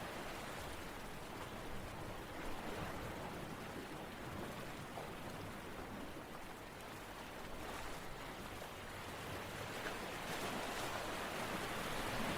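Steady rushing water, an even hiss of noise with no distinct drops or splashes, swelling a little louder near the end.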